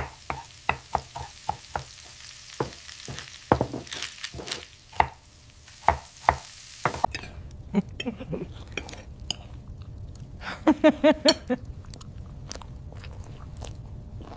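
Cartoon sound effects: a run of irregular sharp clicks and crunches, with a quick cluster of squeaky chirps about ten to eleven seconds in.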